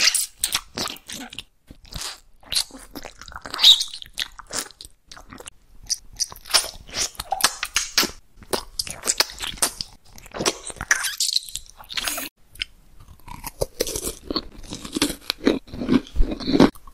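Close-miked eating: crisp food being bitten and chewed, a quick irregular run of sharp crunches, with softer, lower chewing crunches near the end.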